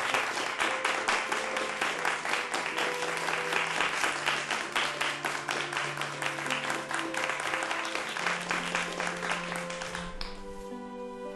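Audience applause, a dense patter of clapping, over slow music of long held notes. The clapping dies away about ten seconds in, leaving the music.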